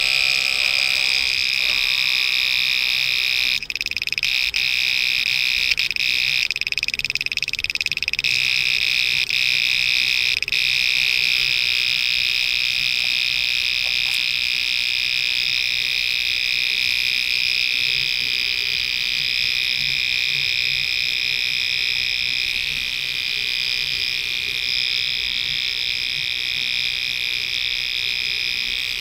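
Homemade reversing buzzer, an ordinary relay wired to interrupt itself and drive a small round speaker from a 12 V battery, giving a continuous, high-pitched harsh buzz that holds steady in pitch.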